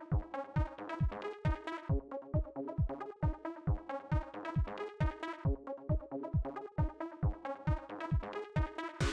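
Electronic dance music with synth chords over a steady kick drum, a little over two beats a second.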